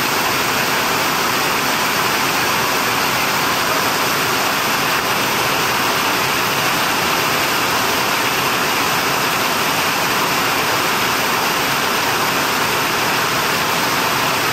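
Falling water from a garden fountain, a steady, unbroken splashing.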